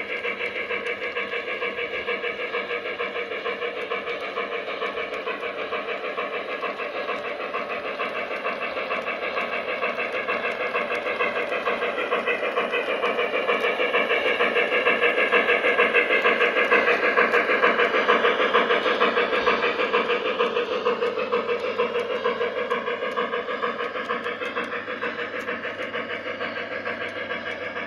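Lionel Western Maryland Shay model steam locomotive running with rapid, even steam chuffing and a steady hum of motors and wheels on the track. It grows louder as the locomotive passes close by around the middle, then fades as it moves away.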